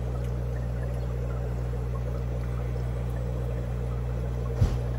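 Aquarium filtration and aeration running: a steady low hum with water bubbling and trickling. A short thump comes near the end.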